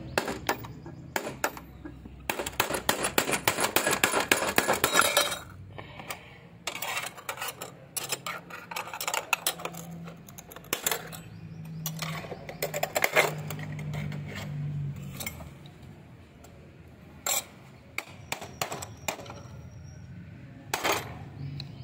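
Glass cover of a wall clock being broken out with a hammer and nail: a fast run of taps about two seconds in, then scattered sharp knocks, with glass shards clinking.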